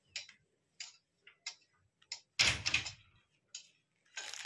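Handling noises: a few light taps and clicks, then a louder thump with a rustle about two and a half seconds in, and a dense crinkling rustle starting near the end.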